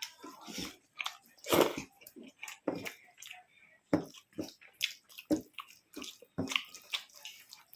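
Close-up eating sounds: wet chewing and lip smacks of a mouthful of rice and vegetable curry, a string of short irregular clicks and squishes.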